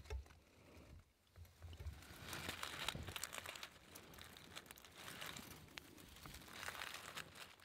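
Dry leaf litter rustling and crinkling faintly as a hand reaches in to pick a wintergreen berry, in two spells: about two seconds in and again near the end.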